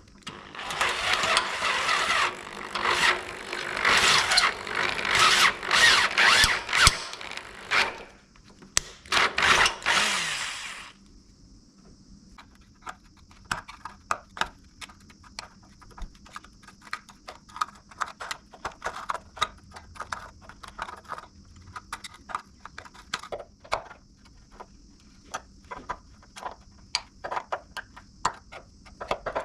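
Power drill boring out a sheared M6 steel stud with a 5 mm bit, in two runs of about eight and two seconds; the motor winds down at the end of the second. Then light, irregular clicking and ticking.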